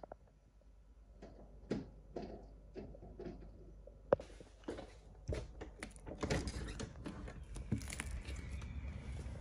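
Faint knocks and taps of a plastic treat toy pushed around stone paving slabs by a dog. About four seconds in, a steady rushing noise rises, with quicker clicks and knocks over it.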